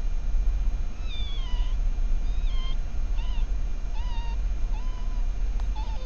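A run of about six short, high mewing whines from crab-eating foxes, the first sliding downward and the rest short with a slight upturn, coming every half second to a second. The owner suspects they are the cries of pups. A steady low rumble of background noise lies under them.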